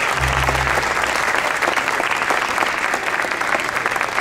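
Audience applauding, a dense, steady clapping. A brief low hum sounds in the first second.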